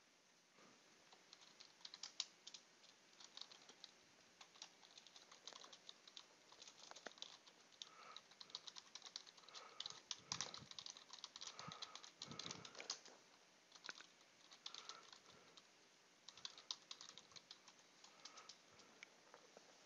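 Faint typing on a computer keyboard: quick, irregular keystrokes in runs with short pauses between them.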